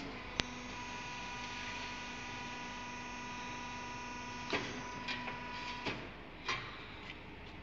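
Diamond saw blade stress-testing and rolling machine running: a steady electric hum with a whine above it, switched on with a sharp click about half a second in and cutting off about six seconds in. A few short knocks come near the end.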